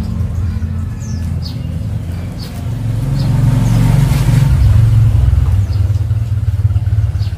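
Low engine rumble of a passing vehicle, swelling to a peak about halfway through and then easing off. A small bird chirps several times over it.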